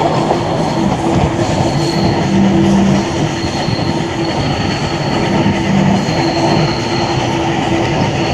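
Steam-hauled passenger train running on the track, heard from an open carriage window: a loud, steady rumble and clatter of the carriage wheels, with a thin squeal that comes and goes as the train rounds a curve.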